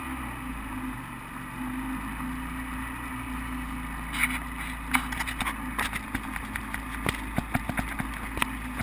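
Small fishing boat's motor running steadily at low speed, a low hum, with scattered sharp knocks and clicks from about four seconds in.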